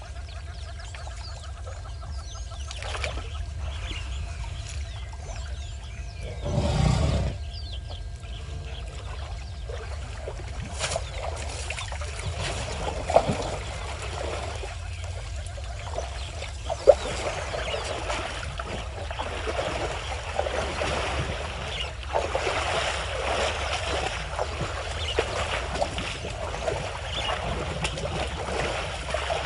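Elephants wading in a waterhole, with water sloshing and splashing that grows busier and denser over the second half, broken by a couple of sharp splashing knocks. Birds call in the background over a steady low rumble, and a brief loud low whoosh comes about seven seconds in.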